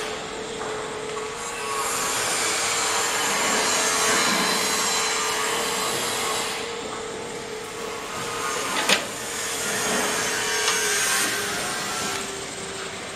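Motorised retractable car-garage canopy extending: a drive motor runs with a steady hum while the fabric sections and aluminium arches rub and scrape as they unfold. A single sharp click sounds about nine seconds in.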